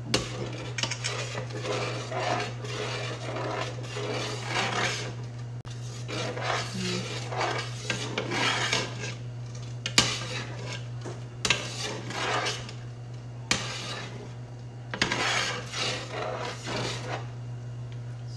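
A spoon scraping and knocking around the inside of a large metal stockpot while a hot coconut-milk and corn mixture is stirred. It comes as repeated scraping strokes with a few sharper clinks against the pot.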